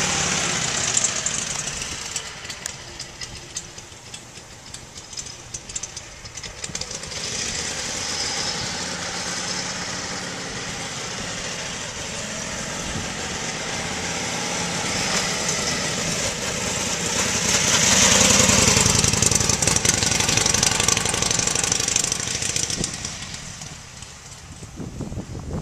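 Exhaust of a 1941 Harley-Davidson EL Knucklehead's 61-cubic-inch overhead-valve V-twin as the bike rides off. It fades as it goes away, grows louder again as it comes back, is loudest about two-thirds of the way through, and fades again near the end.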